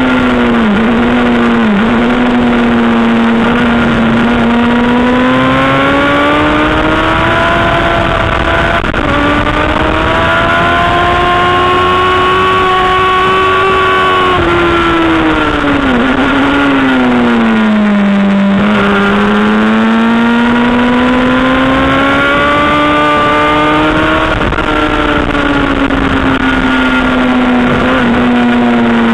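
Honda CBR600 inline-four engine heard from on the bike at full track pace. Its high pitch climbs steadily for about twelve seconds, falls for several seconds near the middle as the bike slows, then climbs again to the end.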